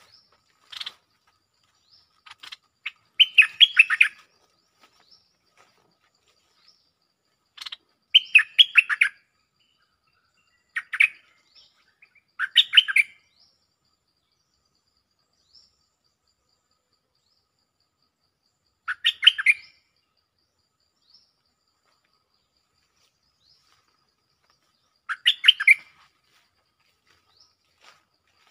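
Stripe-throated bulbul singing short phrases, each a quick run of notes lasting about a second, repeated about six times with pauses of several seconds between them: a caged decoy bird calling for a mate.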